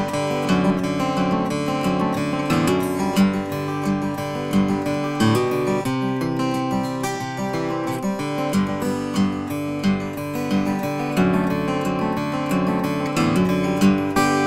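Bourgeois OM steel-string acoustic guitar with a large sound hole, Adirondack spruce top and Brazilian rosewood back and sides, played solo: chords and bass notes picked at a steady, even pulse, each note ringing on with plenty of high overtones.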